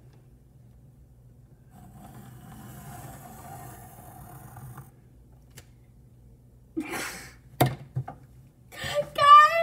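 A girl giggling behind her hand near the end: a breathy puff of laughter a little after the middle, then a louder, high, wavering giggle. Before that there is only faint room noise.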